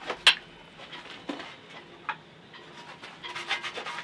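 Workshop handling noise at an aluminium door frame on a welding bench: one sharp knock about a third of a second in, then scattered light taps, and a short spell of rapid clicking near the end.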